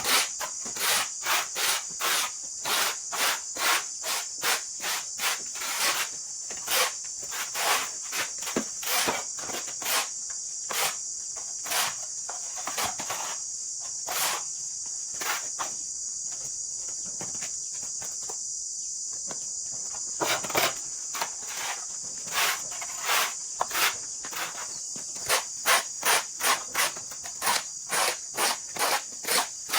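Hand sawing, short rasping strokes about two a second, breaking off for a few seconds in the middle, over a steady high drone of insects.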